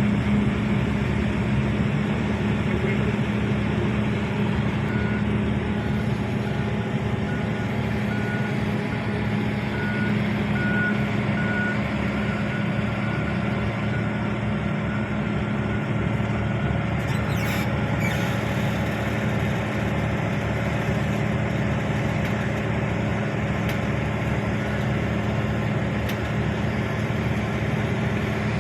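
Hitachi 1200 excavator's heavy diesel engine running steadily at work, with a reversing alarm beeping in an even series from about five to twelve seconds in. A brief hiss about seventeen seconds in.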